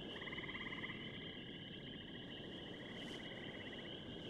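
Faint, steady animal chorus of fast, pulsing trills layered at several pitches, with a lower trill joining for about the first second.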